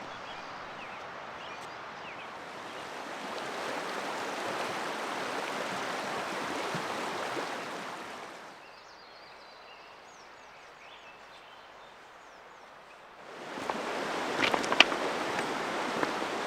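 Mountain creek water rushing, a steady noise that drops away for several seconds in the middle, where faint high chirps are heard. The water noise returns louder near the end with a few sharp clicks.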